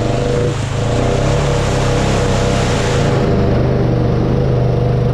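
Honda Rubicon ATV's single-cylinder engine running steadily under throttle as the quad drives into a mud hole, with a rushing noise of tyres churning through mud and water for about the first three seconds.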